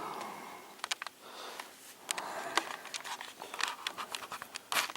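Handling noise from work on a television set: scattered small clicks and scraping, with a few sharper clicks around the middle and one near the end.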